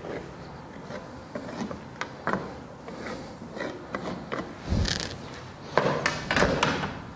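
Dry-erase marker on a whiteboard, tapping and rubbing in short quick strokes as dashed lines and tick marks are drawn along a ruler. A louder knock and scrape comes about five seconds in.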